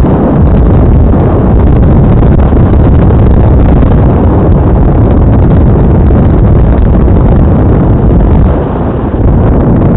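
Loud, steady rush of wind buffeting the microphone on an ultralight trike gliding down with its engine off, with no engine sound in it.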